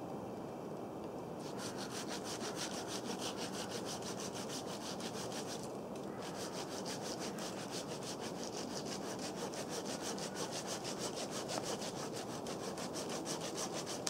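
Hand saw cutting through a fallen birch branch in quick, even back-and-forth strokes. The sawing starts about a second and a half in, stops briefly about six seconds in, then carries on.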